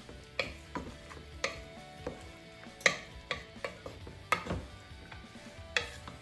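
A wooden spoon stirring chunky stew in a metal pot, knocking against the pot's sides and bottom in about ten sharp, irregular clacks with some scraping between them.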